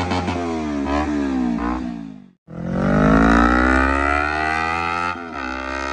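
Kawasaki Ninja 250R parallel-twin engine revving through an aftermarket Akrapovic exhaust. The revs fall in repeated steps at first, break off briefly about two and a half seconds in, then climb steadily and hold high.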